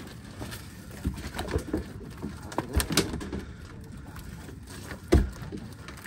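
Irregular knocks and thumps of hands, net and catch working against the boat, with the loudest, a heavy thump, about five seconds in.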